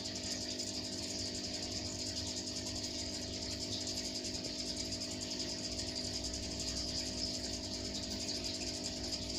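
Aquarium pump humming steadily, with an even hiss of air bubbling through the tank water.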